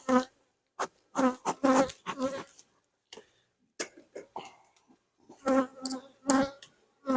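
Honeybees buzzing in short, separate bursts close to the microphone, each lasting a few tenths of a second to about a second, with quiet gaps between them.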